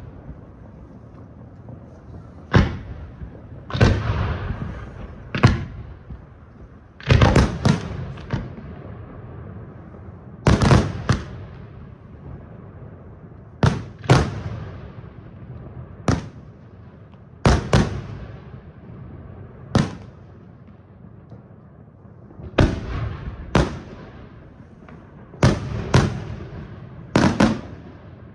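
Aerial firework shells bursting in a professional display: a run of sharp bangs, one every second or two with some coming in quick pairs and clusters, each trailing off in a long echo.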